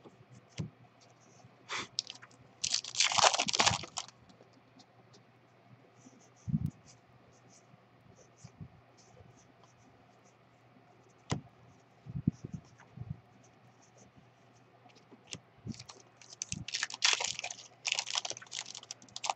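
Hands handling baseball trading cards: soft taps and shuffles as cards are flipped and set down. There are two loud bursts of crackly rustling, a few seconds in and near the end; the last is a foil-wrapped card pack being torn open.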